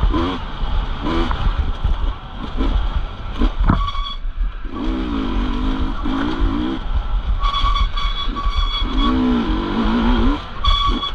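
Off-road dirt bike engines revving up and dropping back several times, with a sharp knock about three and a half seconds in.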